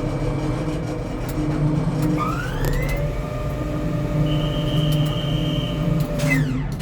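A tower crane's electric drive motor over a steady low machinery hum: a whine rises in pitch about two seconds in as the motor speeds up, holds steady, then sweeps down near the end as it slows. This is a crane motion, most likely the trolley travelling in.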